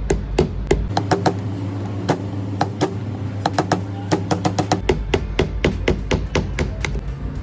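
A hammer tapping in many quick, irregular strikes, over a steady low hum.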